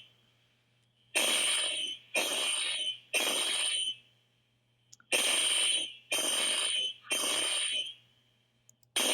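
Building fire alarm horn sounding in the three-pulse evacuation pattern. Three blasts of about three-quarters of a second each, a pause of about a second, three more blasts, and a new blast begins right at the end.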